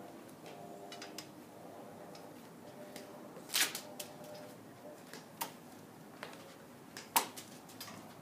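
A few sharp crinkles and taps as a cat bats a small crumpled ball around on a carpet, the loudest three spaced about two seconds apart.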